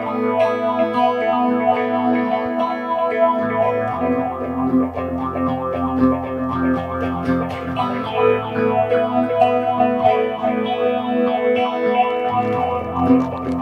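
Guitar music played through effects, with some distortion, ringing out in held notes and chords.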